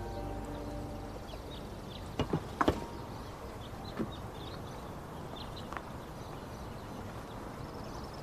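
Quiet outdoor ambience. A held music note dies away in the first second, then a few soft knocks, three close together about two seconds in and single ones near four and six seconds, over faint scattered bird chirps.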